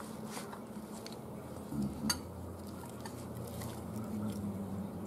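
Dishes and food being handled on a table: a few faint clicks and taps, with a soft knock and click about two seconds in.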